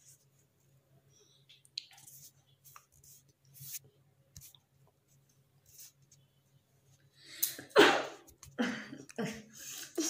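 A woman sniffs faintly at a green chili held under her nose, then, nearly eight seconds in, lets out one loud sneeze set off by the chili's smell, followed by a few shorter breathy sounds.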